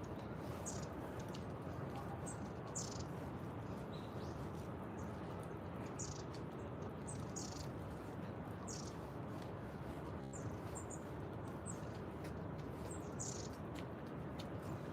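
Small birds chirping in short, high notes, one every second or so, over a steady low background noise.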